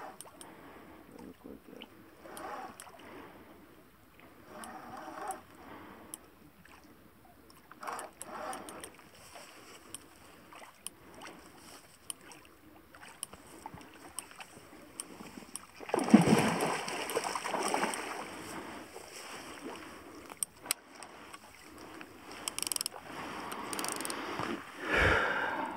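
Water splashing in bursts as a hooked fish thrashes at the surface while it is reeled in. The loudest splashing comes about two-thirds of the way in, there is more near the end, and a dull thump sounds just before the end.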